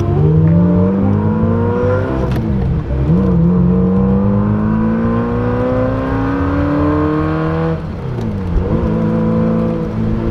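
Ferrari 348ts V8 engine accelerating through the gears, heard from inside the cabin. The revs climb, fall at an upshift about two seconds in, then climb again for several seconds. They fall at a second upshift about eight seconds in and settle to a steady pull.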